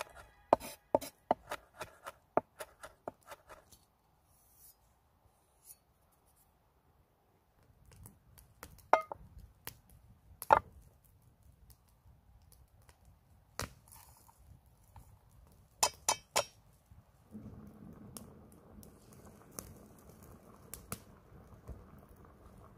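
A small cleaver chopping fresh rosemary on a wooden cutting board, quick sharp knocks about three a second for the first few seconds. Then scattered sharp clinks and scrapes of a knife against a metal enamel mug as butter is scooped into it.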